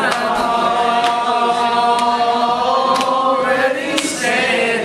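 A group of voices singing together without instruments, holding long notes for a few seconds and then moving on to new notes near the end.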